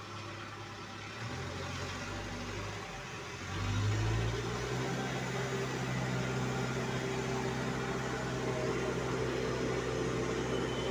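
Case backhoe loader's diesel engine running, heard from inside the cab. About three and a half seconds in, the engine speeds up and gets louder, then holds a steady, higher note as the machine works under load.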